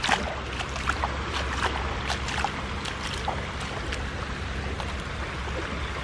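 Steady wind noise on the microphone over shallow seawater washing across sand and bare feet, with small scattered splashes.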